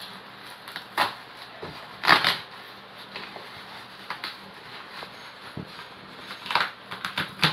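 Plastic bubble wrap crinkling and rustling as hands pull it and cut it open with a box cutter. It comes in a handful of short bursts, the loudest about two seconds in.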